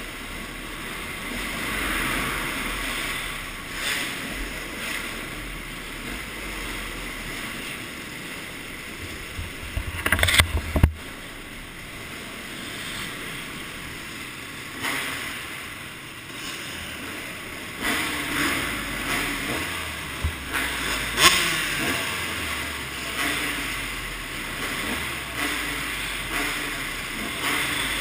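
Motocross bike ridden on a dirt track heard from a helmet camera: engine noise mixed with rushing air on the microphone. There is a cluster of loud knocks about ten seconds in and another sharp one near twenty-one seconds.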